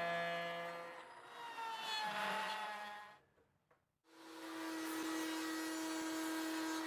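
CNC router spindle running with a steady whine that drops in pitch and fades out about three seconds in. After a second of near silence, a spindle is running again with a steady high whine.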